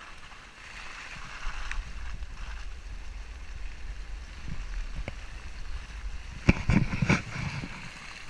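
Volkswagen Amarok 4x4 pickup driving off-road over a rough dirt track, heard from a camera mounted outside the truck as a steady low rumble of wind and driving noise. About six and a half seconds in comes a quick run of loud knocks and thuds.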